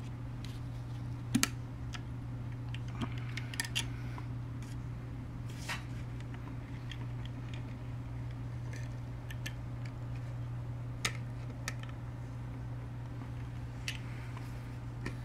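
Scattered sharp clicks and light metal taps from an aluminum birdhouse and its hanging eye-hook and latch hardware being handled. The loudest is a double click about a second and a half in, and all of it sits over a steady low hum.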